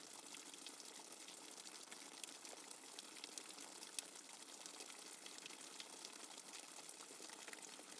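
Rainwater dripping fast and hard: a dense, quiet patter of many small drips, with one sharper drop standing out about halfway through.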